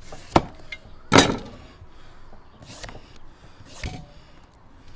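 A cleaver cutting a winter melon on a cutting board: a light tap, then one heavy chop about a second in. It is followed by a few softer scrapes and knocks as the melon is peeled with a hand peeler.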